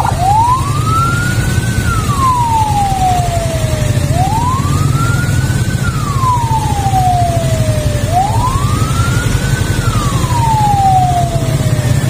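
Ambulance siren on a slow wail, climbing in pitch and sliding back down about every four seconds. Under it runs a steady low rumble of vehicle engines in a traffic jam.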